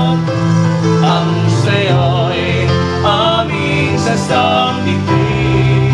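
Tagalog Christian worship song: singing over sustained instrumental backing.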